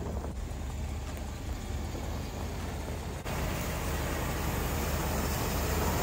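Mercedes M117 V8 engine running steadily, stepping up slightly in level about three seconds in. The engine still has a lumpy idle misfire, which the owner suspects is a fuel issue.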